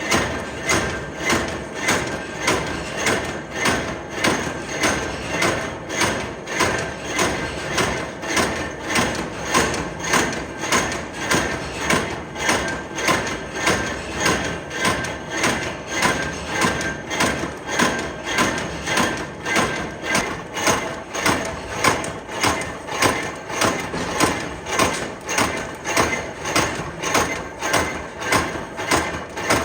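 A nut-making machine in a factory, working in a steady rhythm of knocks, about three strokes every two seconds, over a constant mechanical din.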